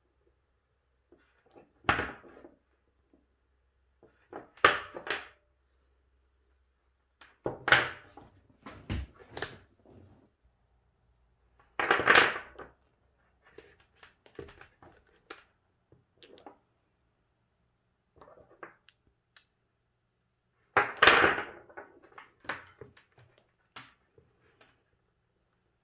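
Cylindrical lithium-ion cells being handled and set down on a wooden tabletop: a string of separate hard knocks a few seconds apart, with quieter clicks and handling rustles between.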